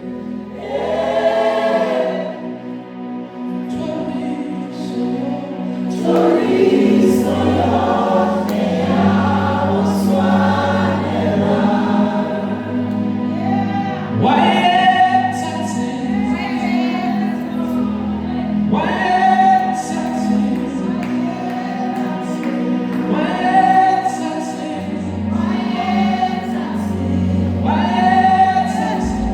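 Gospel choir singing in harmony, in phrases of a few seconds each with short breaks, over a steady held low note.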